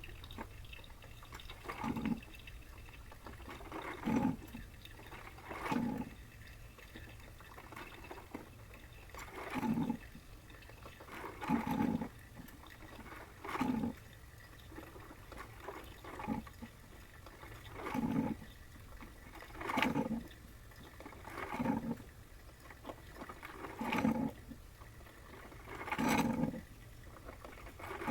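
Panasonic NC-A58 drip coffee maker brewing, played at double speed: a steady low hum with a short, rough surge about every two seconds. The unit has developed an abnormal buzzing, vibration-like noise that its maker could not explain.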